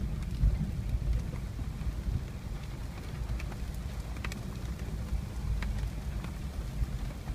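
Jeep driving on a dirt road, a steady low rumble of engine, tyres and wind, with scattered ticks of raindrops striking the vehicle.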